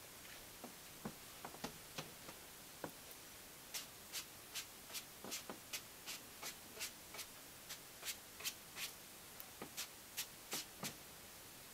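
Wide hake dyeing brush swept back and forth over stretched cloth, laying on the madder ground colour. A few soft strokes at first, then from about four seconds in a steady run of quick scratchy swishes, about three a second.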